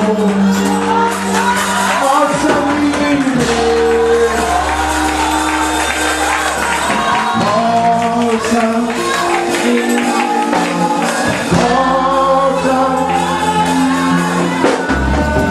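Live gospel worship music: voices singing over a band with sustained bass notes and tambourine.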